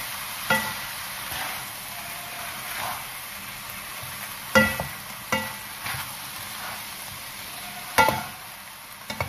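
Spaghetti with chicken and vegetables sizzling as it is stir-fried in a pan over a high flame, with a steady hiss. A fork clinks sharply against the pan now and then while tossing the noodles, the loudest strikes about halfway through and near the end.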